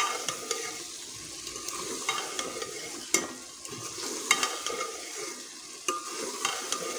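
A metal spoon stirring okra into sizzling masala in a metal cooking pot: a steady sizzle with irregular scrapes and clinks of the spoon against the pot.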